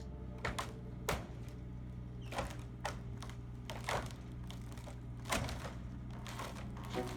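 Excavator engine running steadily underneath a series of sharp cracks and knocks, about seven in all, as the barn's structure is pulled apart.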